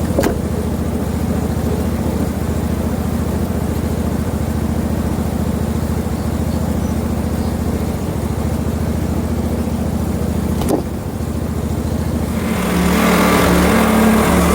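Portable band sawmill's gasoline engine running steadily, with a couple of sharp clicks. Near the end the sound grows louder and rougher, with a hiss and a higher tone over the engine.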